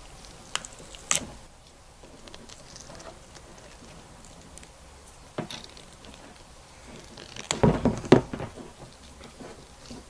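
Handling noise from wrapping self-vulcanizing tape around a cable connector: scattered sharp taps and knocks, with a louder cluster of knocks and rustling about three-quarters of the way through.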